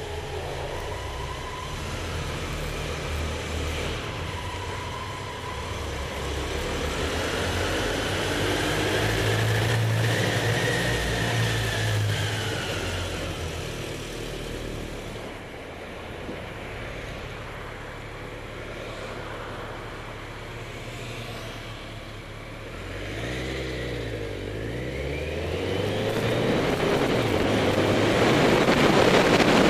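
Motorcycle engine running under way, its pitch rising and falling as the bike accelerates and changes gear, with a dip and climb in revs about three-quarters through. Rushing air noise builds near the end as speed rises.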